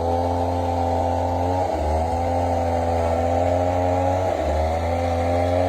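Chainsaw engine running at high speed, its pitch dipping briefly and coming back up twice.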